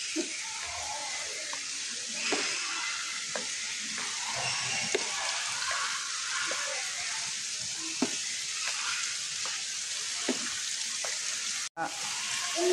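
Steady hiss of open-air background noise, with faint distant voices and a few soft knocks.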